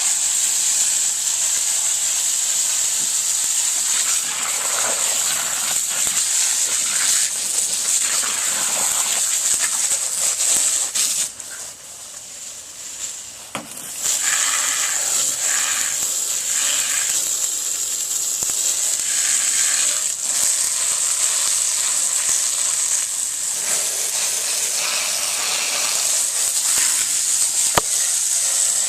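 Steam hissing and sizzling off a campfire's embers as they are doused with water. The hiss is steady and drops away briefly about twelve seconds in, then comes back.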